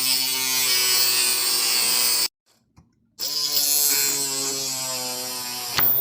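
Small 12 V brushed DC motor of a homemade mini drill running at speed with a steady high whine. It cuts out about two seconds in, starts again a second later, and gives a brief louder burst near the end.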